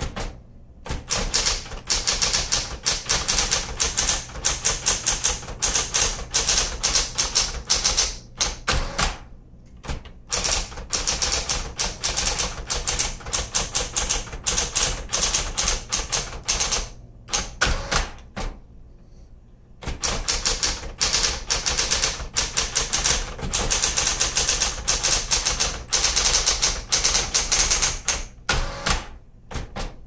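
A 1970s Smith Corona Electra 220 electric typewriter is being typed on: a rapid clatter of typebars striking over the steady hum of its running motor. The typing comes in long runs, with short pauses about nine seconds in and again between about 17 and 20 seconds in.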